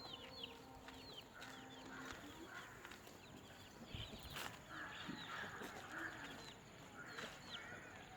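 Birds chirping faintly: many short, high peeps that fall in pitch, with a few soft rustling sounds between them.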